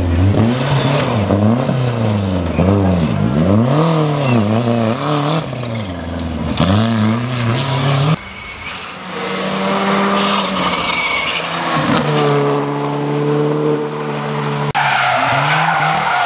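Rally car engines driven hard, their pitch rising and falling again and again as the drivers accelerate, lift and change gear. There is tyre noise from cars sliding. The sound cuts suddenly twice, about eight and fifteen seconds in, to another car whose engine is held at a steadier pitch.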